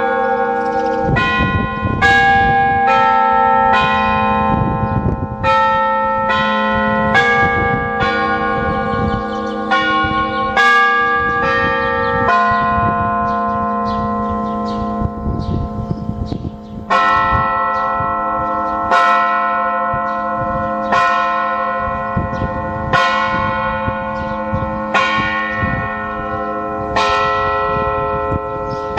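Church bells ringing, struck about once a second in the first half, then one strike about every two seconds in the second half, each stroke ringing on into the next.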